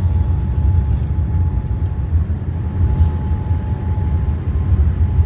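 Airliner cabin noise on the landing roll, wing spoilers raised: a steady low rumble from the engines and the wheels on the runway, with a faint steady whine above it.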